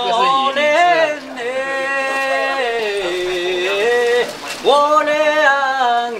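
A man singing a Dong folk song alone, in long held notes that waver and slide in pitch, with a short break about four and a half seconds in.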